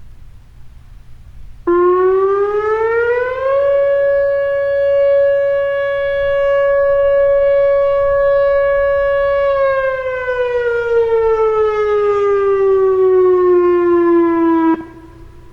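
Whelen WPS-2909 electronic outdoor warning siren sounding a short test alert: one tone that starts abruptly, rises for about two seconds, holds steady for about six, then falls slowly over about five seconds and cuts off sharply.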